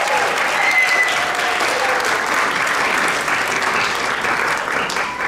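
Audience applauding after a song ends, the clapping starting to die down near the end.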